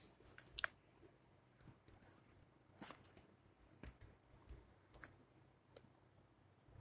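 Scattered sharp clicks and short scratchy rustles, the loudest about three seconds in: a paper notes page and pen being handled on a desk.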